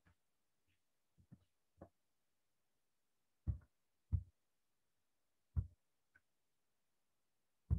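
Several short, dull knocks at irregular intervals, four of them louder than the rest, with near silence between them.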